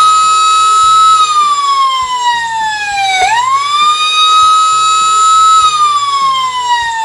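Electronic siren sound effect played from a Robocar Poli talking toy ambulance: a wailing tone that holds high, slides slowly down, sweeps quickly back up about three seconds in, holds, and slides down again.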